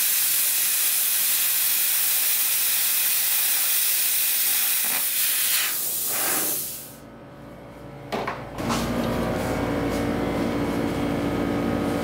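Plasma cutter hissing steadily as it cuts through a Miata's sheet-metal floor, then cutting off about seven seconds in. After a few clicks, a steady hum with several held tones takes over.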